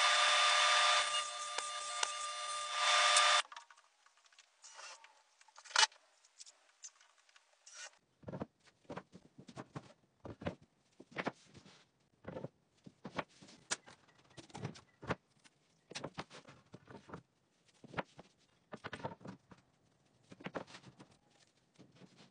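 A table saw runs for about the first three and a half seconds, then cuts off sharply. After that come scattered light knocks and taps of wooden cleat strips being handled and set against a wall.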